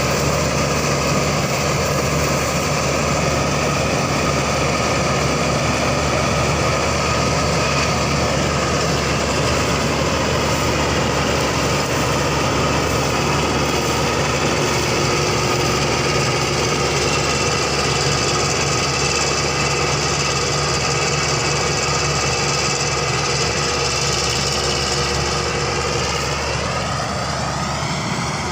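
Claas Crop Tiger 40 combine harvester running steadily, its engine and machinery making a constant loud drone; near the end a whine rises in pitch.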